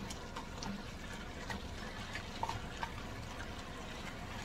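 Oxtails sizzling and bubbling in caramelized brown sugar in an enamelled pot while being stirred with a wooden spoon: a steady low hiss with a few small pops and taps.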